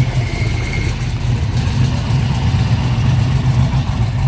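Classic Dodge Challenger's engine idling with a loud, steady low rumble.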